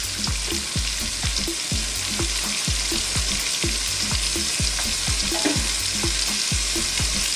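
Battered pork pieces deep-frying in hot oil in a wok: a steady, dense sizzle. A regular low thump about three times a second runs underneath.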